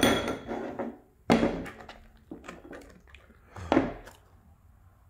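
Light plastic bowls knocked about and clattering on a wooden tabletop as a dog noses them over to get at a treat: three sharp knocks, at the start, about a second and a half in and near four seconds, with smaller taps between.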